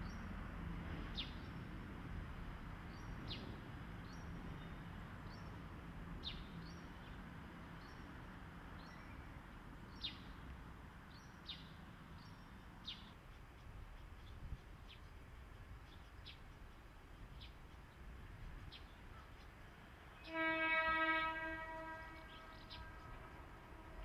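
A train horn sounds one loud steady note for about a second and a half near the end, then trails off. Before it there are bird chirps over a low rumble that fades out about halfway through.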